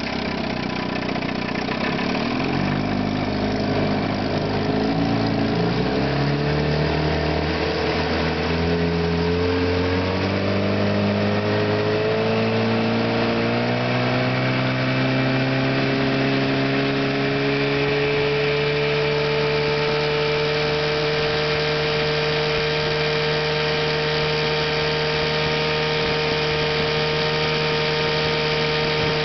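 1954 Johnson QD-15 10 hp two-stroke twin outboard motor running under way, its pitch climbing over the first fifteen seconds or so as the throttle is opened up. It then holds a steady high note at wide-open throttle.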